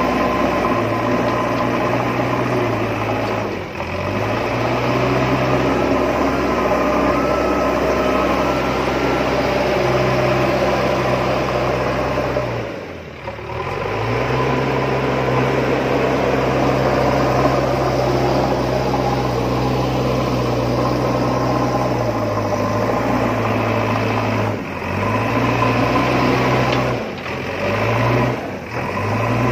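Steady engine-like running sound with a constant low hum, as of a small construction machine, dipping briefly and picking up again several times.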